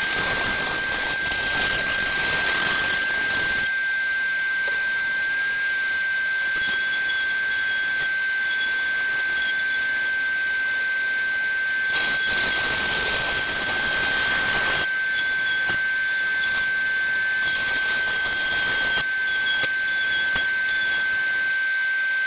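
Dremel rotary tool cutting a dado in a wooden board: a steady high motor whine, with rough cutting noise coming and going as the bit is pushed through the wood. Near the end the tool is switched off and the whine drops away.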